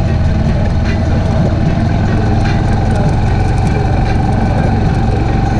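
Onboard sound of an ATV engine running steadily and loudly while riding along a dirt trail.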